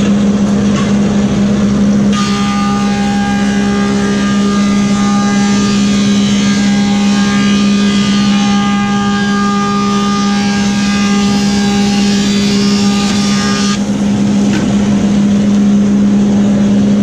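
Woodmaster 725 planer with a helical cutterhead running steadily. About two seconds in, a board starts feeding through and the sound turns into a louder cutting noise with a steady whine. About fourteen seconds in the board clears the cutterhead, and the machine runs on at its steady hum.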